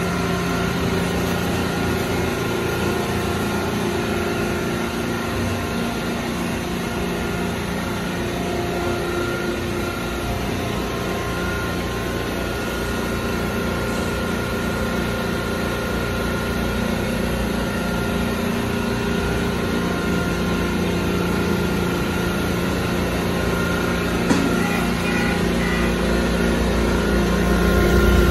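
A Futura Millennium touchless car wash running steadily, with the even hum and whine of its pumps and spray. There is a brief tick near the end and a swelling low rumble just before it ends.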